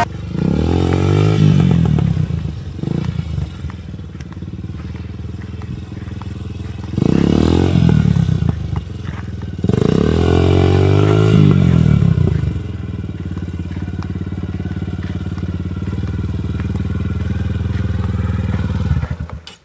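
Yamaha TTR150 mini dirt bike's single-cylinder four-stroke engine running loud through an aftermarket sport exhaust. It revs up in surges about a second in, around seven seconds and again from ten to twelve seconds, and runs lower and steadier in between. It cuts out suddenly just before the end.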